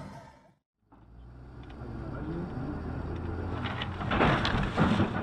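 Steady engine and road noise from a moving car, heard on a dashcam, starting after a brief silence near the start. About four seconds in it swells into a louder rush as a loaded log truck passes close alongside.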